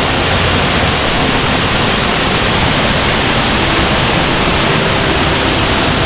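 Waterfall water rushing in a loud, steady roar.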